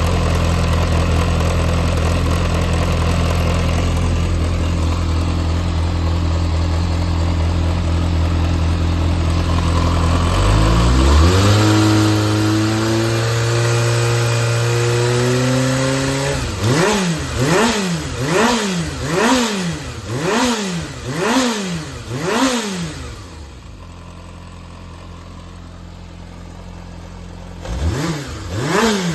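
Yamaha XJR400's air-cooled inline-four engine idling steadily, then brought up to a higher held speed for about five seconds, then revved in quick throttle blips about once a second. It drops back to a quieter idle before the blips start again near the end; the seller lists it as running with no abnormal noise.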